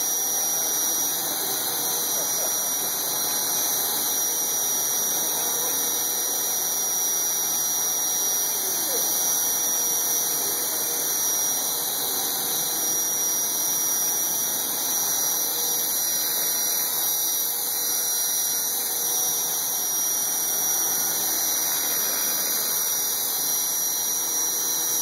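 T-Rex 450 electric radio-controlled helicopter hovering, its motor, gears and rotor making a steady high whine at an even level.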